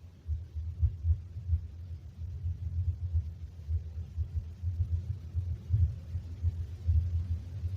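Very loud, deep rumbling noise from a played-back recording, unsteady and pulsing in level throughout.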